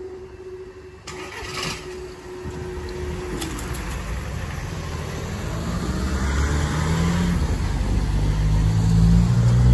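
A steady hum from the level crossing barrier mechanism as the barriers rise, stopping about three and a half seconds in. Then a van's engine grows steadily louder as road traffic pulls across the crossing, loudest near the end.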